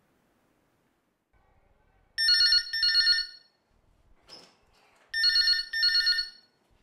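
Telephone ringing in a double-ring pattern: two pairs of short rings about three seconds apart, with a short faint noise between them.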